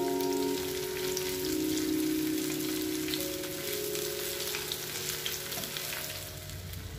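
Onion rings frying in hot oil: a steady sizzle with scattered small crackles and pops.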